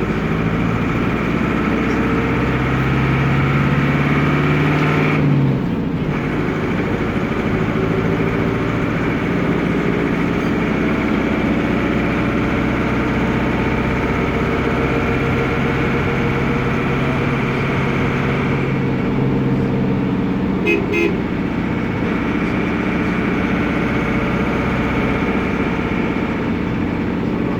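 Noisy air-cooled Deutz F4L912 four-cylinder diesel of an Otokar M-2000 minibus running under way. The engine note changes abruptly about five seconds in and again around two-thirds of the way through.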